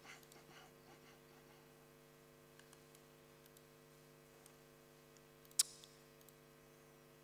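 Quiet room with a steady low electrical hum and faint, scattered laptop clicks, with one sharper click a little over five seconds in.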